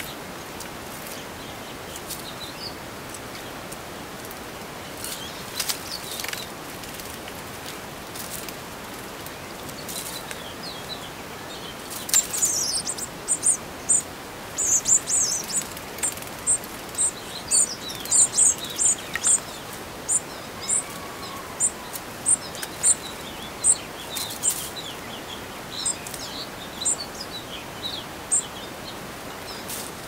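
Small songbirds chirping: a long run of short, very high chirps, about two a second, starting about twelve seconds in and thinning out near the end. A few brief rustles or flutters come earlier, over a faint steady outdoor hiss.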